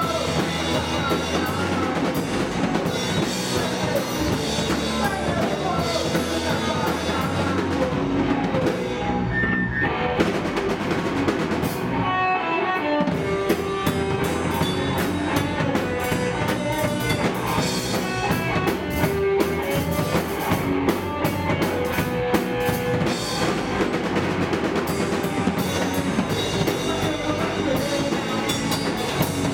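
Punk rock band playing live: electric bass, electric guitar and a drum kit driving a fast song. Near the middle the drums and low end briefly drop away, leaving guitar notes, before the full band comes back in.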